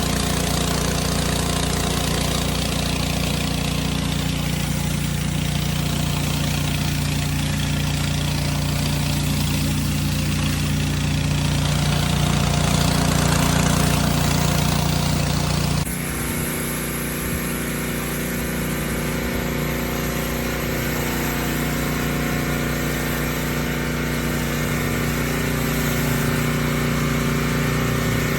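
Gas pressure washer engine running steadily, with the hiss of water spraying from a rotary surface cleaner. The sound changes abruptly a little over halfway through.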